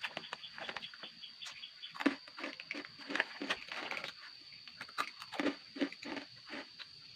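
Short animal calls repeated irregularly, several a second at times, over a steady high-pitched tone.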